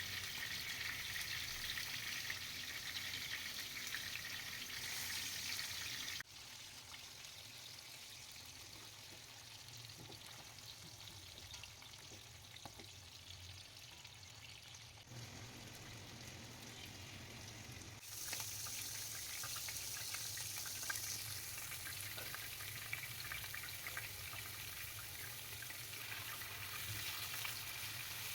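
Food frying in hot oil in a pan: a steady sizzle. It drops sharply about six seconds in and comes back louder after about eighteen seconds.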